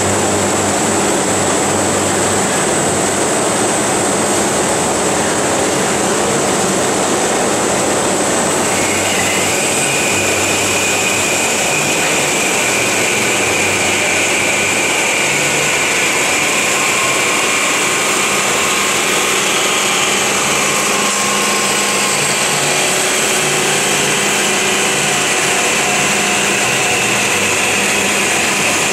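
FMB Omega semi-automatic hydraulic band saw running steadily while cutting solid metal bar, with a constant high-pitched whine. A second, lower whine joins about a third of the way in and holds to the end.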